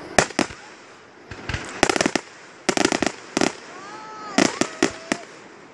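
Aerial fireworks going off with repeated sharp bangs. Some come singly and some in quick crackling clusters, about half a dozen groups over a few seconds.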